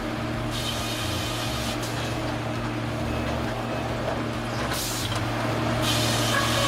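Sawmill machinery running with a steady low drone, broken about four times by short hissing spells.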